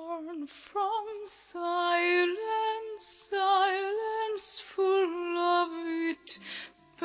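Song music: a woman singing in a high voice with strong vibrato, the words' s-sounds standing out sharply.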